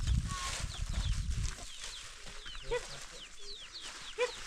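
Chickens clucking, with many short high chirps throughout and two louder clucks, one near three seconds in and one near the end. A low rumble fills the first second and a half.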